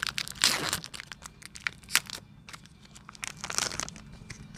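Foil wrapper of a Pokémon trading card booster pack being torn open and crinkled, in a few short rustling bursts.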